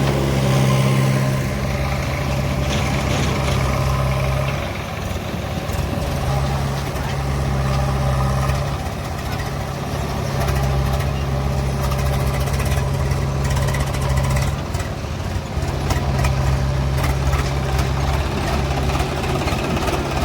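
Heavy diesel engine running steadily, its note easing off and coming back a few times.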